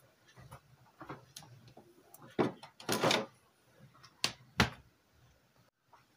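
Kitchen dishes and cookware being handled: a sharp knock about two seconds in, a short clatter just after, then two more knocks a little later.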